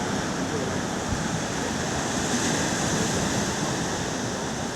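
Ocean surf washing, a steady rush of waves that swells a little louder midway.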